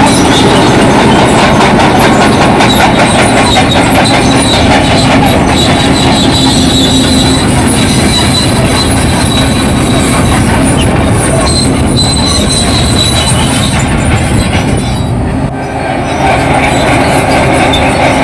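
Crawler bulldozer working: its diesel engine running under load while the steel tracks clank and squeal. The sound eases off briefly about fifteen seconds in, then picks up again.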